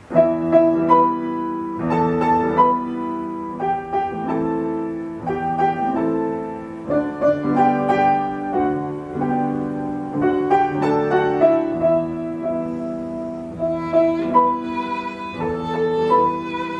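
Piano and violin playing together: struck piano chords under a slow, sustained violin melody.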